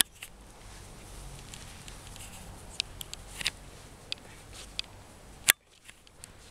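A few light, sharp clicks scattered over a faint outdoor background, with a louder click right at the start and another about five and a half seconds in.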